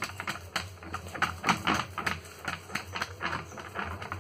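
Fingers patting and pressing rice-flour dough flat onto an oiled aluminium plate: an irregular run of soft slaps, about three a second.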